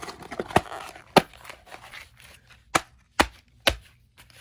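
Objects being handled by hand: five sharp knocks at uneven spacing, with rustling between the first few.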